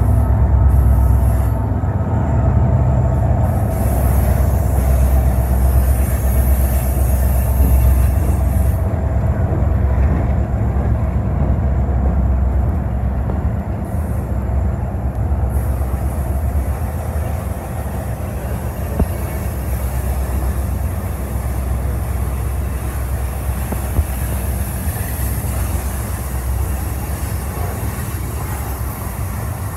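Union Pacific freight train passing close by: a diesel locomotive's deep engine rumble, then freight cars rolling past with a steady rumble of wheels on rail. A thin whine sounds in the first few seconds, and two sharp clacks come in the second half.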